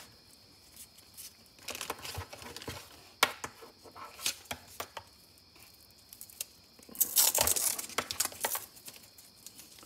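Rustling and small clicks of a coiled USB-C cable being handled and uncoiled by hand, the cable and its plugs rubbing and tapping. A louder spell of rustling comes about seven seconds in.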